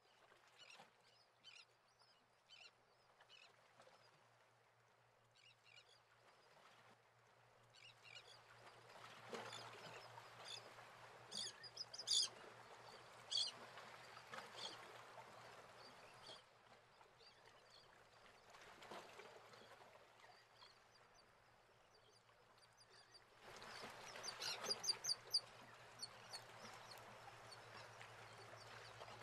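Faint bird calls, short chirps scattered throughout over a low steady hum and a soft hiss. The hiss swells about eight seconds in and again near the end.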